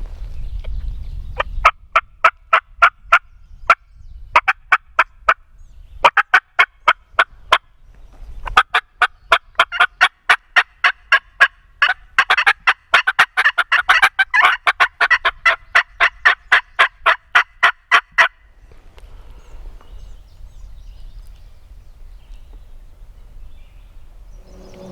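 Hand-worked turkey call sounding a string of sharp yelps and clucks, close by. It comes in several short series, then one long run of about ten seconds that stops about three-quarters of the way through.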